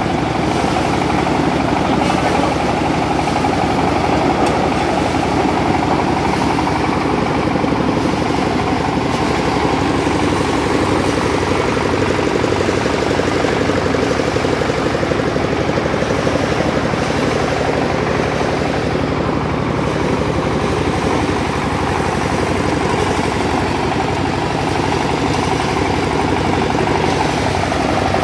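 BRRI-model paddy drum thresher running steadily under power while rice stalks are fed into it: a loud, continuous machine drone with no breaks.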